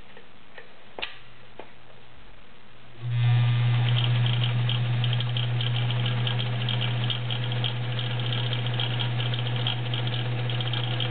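Vintage Kenmore 1217 all-metal sewing machine with its 1-amp motor starting up about three seconds in after a couple of faint clicks, then running steadily with a loud hum and fast rapid ticking from the needle mechanism.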